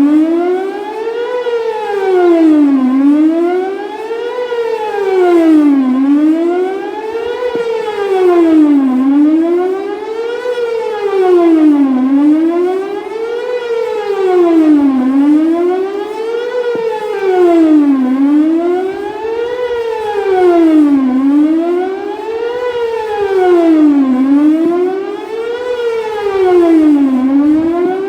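Whelen WPS 4008 electronic outdoor warning siren sounding a fast wail, its tone sweeping up and down in pitch about every second and a half to two seconds. Its rotator is broken, so it stays pointed in one direction.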